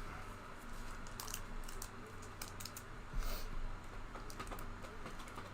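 Trading cards being handled and flipped through, making light, irregular clicks and rustles, with a slightly louder cluster a little past three seconds.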